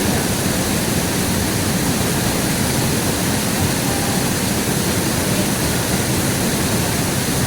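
River water flowing, a steady, even rushing noise that does not change.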